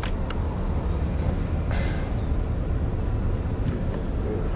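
Steady low rumble of a car heard from inside the cabin, with a short hiss about two seconds in.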